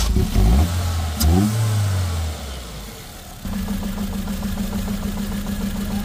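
Ford Figo petrol four-cylinder engine starting up: it revs briefly and falls back, then settles into a steady, pulsing idle. It is misfiring, with cylinders one and three not firing.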